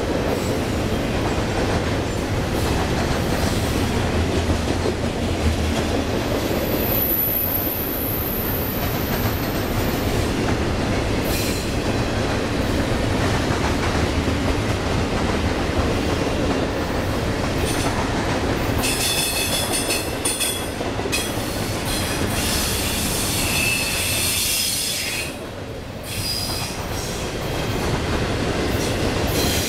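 Double-stack intermodal freight cars rolling past on steel rails: a steady rumble and clatter of wheels on track, with short high-pitched wheel squeals coming and going several times.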